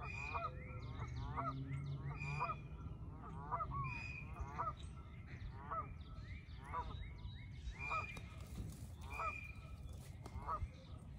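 A bird calling over and over, about once a second, each call short and harsh with several pitches stacked together.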